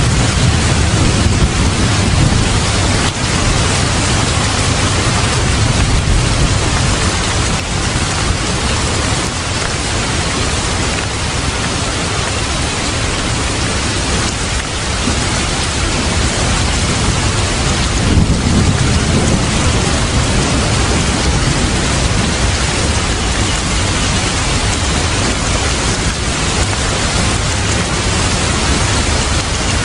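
Steady heavy rain with a low rumble of thunder, one rumble swelling up a little past the middle.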